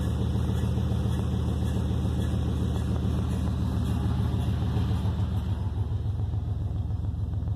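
Chevy pickup truck engine idling steadily in neutral, with the driveshaft still turning the raised wheel, which the owner says shouldn't spin in neutral. The engine's low pulsing becomes more distinct about five seconds in.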